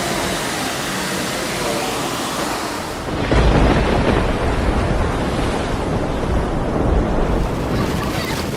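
Storm sounds: a steady rushing noise, then from about three seconds in a loud, deep rumble lasting about four seconds.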